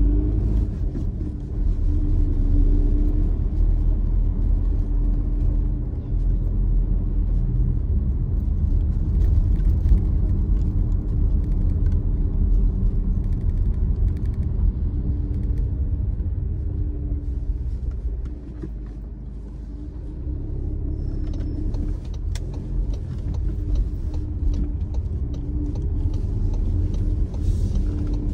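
Car engine and road rumble heard from inside the cabin while driving slowly through town, a steady low drone with a faint hum. It eases off briefly about two-thirds of the way through.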